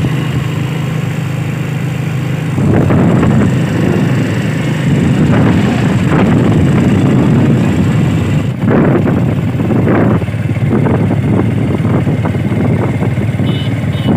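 Vehicle running along a road with gusty wind rumble on the microphone, which grows louder about two and a half seconds in.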